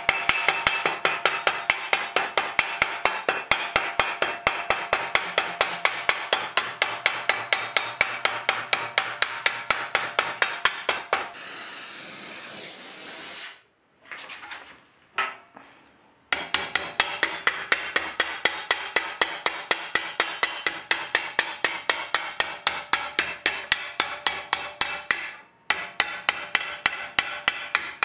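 Steel hammer striking a 4130 spring-steel armour plate held over a steel stake, in a steady run of ringing blows at about four a second. Midway the blows stop for a loud steady hiss of about two seconds, then a quiet pause, before the hammering resumes.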